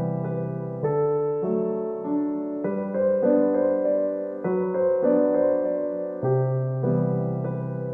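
Background music: a soft electric piano tune playing chords and a melody at an even pace.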